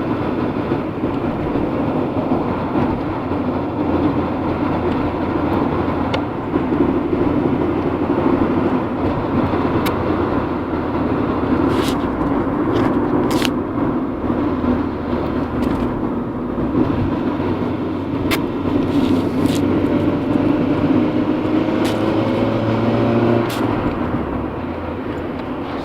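Honda Integra DC2 on the move, with steady road and drivetrain noise and irregular sharp knocks scattered through it. The owner traced the knocking to a faulty half shaft combined with aftermarket driveshafts.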